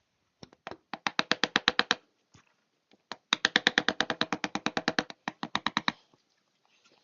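A small straight chisel tapped rapidly and lightly, about ten taps a second, to cut the first edge of a thimble inlet into a wooden rifle stock. There are two runs of taps, a short one about a second in and a longer one from about three seconds in, with a few single taps between.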